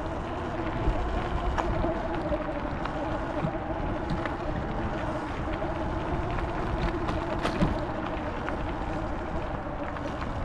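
E-bike rolling over a gravel and dirt trail: steady tyre noise and wind on the handlebar camera, with a wavering hum and scattered small clicks of gravel.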